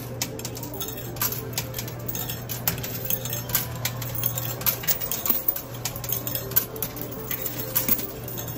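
Quarters dropping into a coin pusher machine, clinking and clattering on the metal playfield and against the coins already there in a run of sharp, irregular metallic clicks, over a steady low hum.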